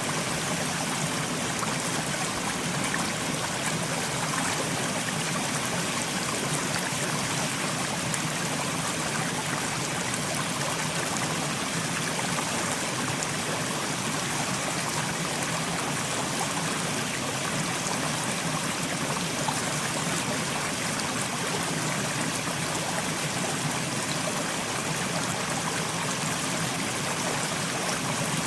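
Mountain stream flowing steadily over rocks, a continuous even rush of water.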